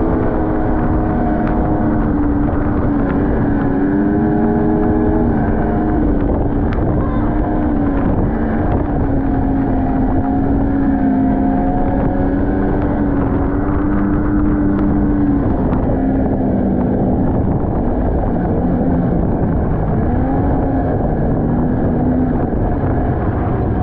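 Snowmobile engine running under way, its pitch rising and falling as the throttle changes, over a loud rushing of wind on the microphone.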